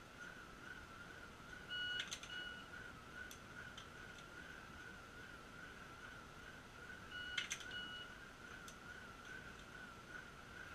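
Shot timer beeping in two pairs: a start beep, then a par-time beep 0.6 s later, for each of two pistol draws from hands at sides. Sharp clicks of the draw fall between the beeps of each pair. A faint, steady, warbling high tone runs underneath.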